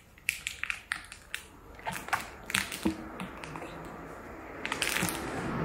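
Rubber bead-seating ring being stretched and worked around a tyre by gloved hands: a scatter of small clicks, creaks and rubbing scrapes of rubber on rubber and the rim. A steady rushing noise rises over the last second or so.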